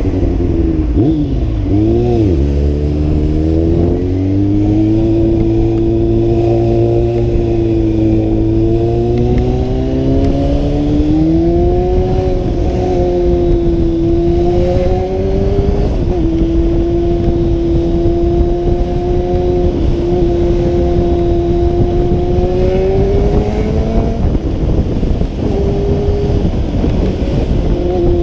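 Honda CB600F Hornet's inline four-cylinder engine running under the rider. Its note falls and climbs sharply in the first few seconds, then holds at cruising revs with slow rises and a couple of sudden drops as the throttle and gears change.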